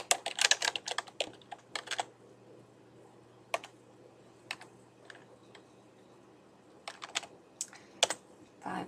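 Typing on a computer keyboard: a quick run of keystrokes for about two seconds, then a few scattered single key presses, and another short run of keystrokes near the end.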